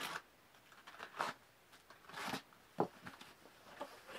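Packing tape on a cardboard shipping box being slit and torn open and the cardboard flaps pulled apart: a few short rasping tears and a sharp tap near the end.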